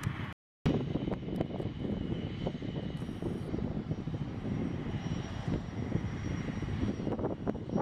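Twin-engine business jet taxiing, its rear-mounted jet engines running at taxi power with a faint high whine over a low rumble. The sound drops out for a moment just after the start.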